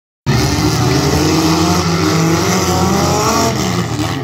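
Engines of several figure-eight race cars running hard together, loud and continuous, their pitch wavering and rising as they rev.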